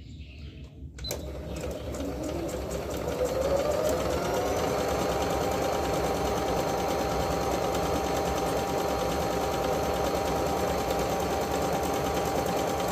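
Singer Fitline 6700 computerized sewing machine starting up about a second in, its motor rising in pitch as it speeds up over a few seconds, then running at a steady speed with rapid, even needle strokes as it sews a decorative stitch.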